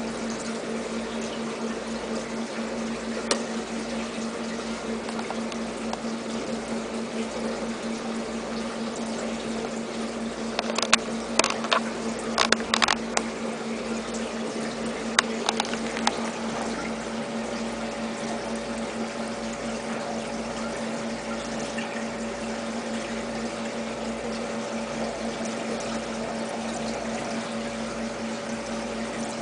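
Aquarium pump or filter running: a steady motor hum over trickling, bubbling water. A few sharp clicks or taps come in a cluster about 11 to 13 seconds in, with one more a couple of seconds later.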